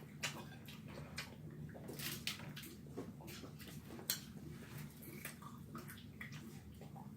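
Close-up eating sounds: wet chewing and lip-smacking in an irregular run of sharp clicks and smacks.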